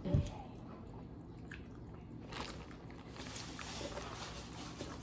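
Close-miked eating sounds: biting and chewing seafood, with faint scattered clicks. A short low sound about a quarter second in is the loudest part.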